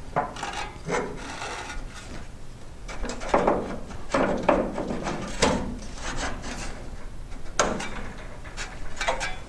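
A welded steel bar scraping and knocking against the aluminium fuselage frame as it is worked into place by hand for a test fit: a run of irregular scrapes and knocks.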